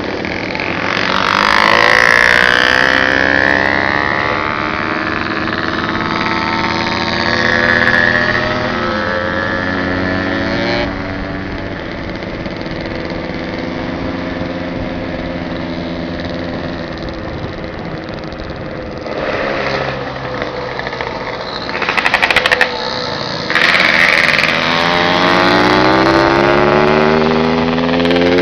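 Motorcycle engine heard from on board while riding, its pitch climbing and dropping again and again as the rider accelerates, shifts and eases off. A steady rushing noise of wind and road runs under it, and the engine climbs steeply near the end.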